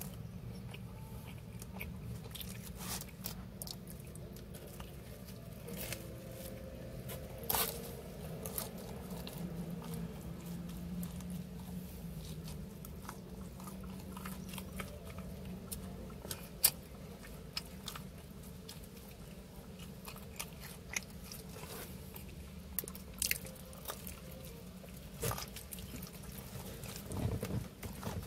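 Close-up chewing and biting of pepperoni pizza, with scattered short crunches and mouth clicks over a steady low hum.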